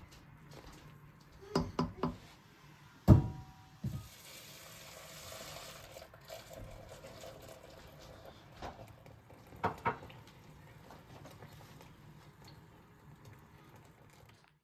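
Kitchen work sounds: three quick knocks, then one loud clink with a short ring about three seconds in, followed by about two seconds of water running from a tap and a few more light knocks of dishes later.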